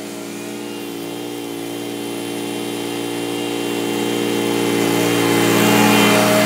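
Small gasoline engine of a walk-behind lawn mower running at a steady speed while mowing, growing steadily louder as the mower comes closer.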